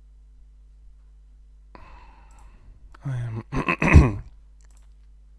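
A man draws a breath, then gives a loud voiced sigh, broken by a short pause, about three to four seconds in. A low steady electrical hum runs underneath.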